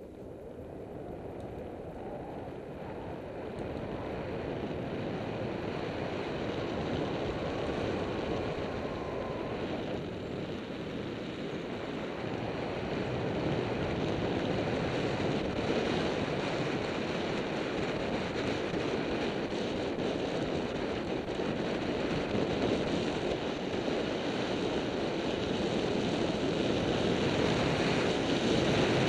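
Rushing wind on the microphone of a handlebar-mounted camera on a bicycle riding along a paved lane, growing steadily louder as the bike picks up speed.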